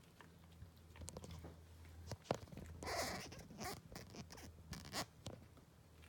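Cat eating raw meat off the floor: scattered soft, wet clicks and chewing noises, busiest from about two to five seconds in.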